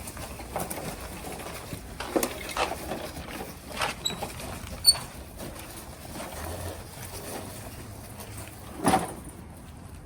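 Handling noises from a push lawnmower as its handlebars are raised: scattered clicks and knocks of metal and plastic parts, the sharpest about five seconds in and a heavier clunk near the end.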